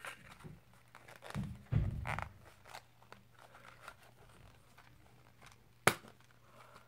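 Plastic blister packaging of a fishing lure being handled and opened: scattered crinkling and crunching of plastic, two dull bumps about a second and a half in, and one sharp click near the end.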